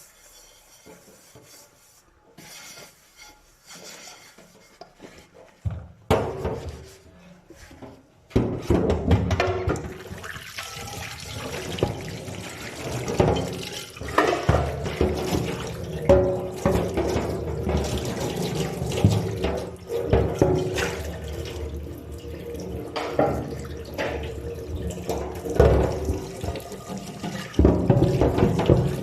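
Tap water running into a sink while dishes are washed by hand, with knocks of dishware against the sink. The first eight seconds are quiet apart from a few light knocks, then the water comes on and keeps running.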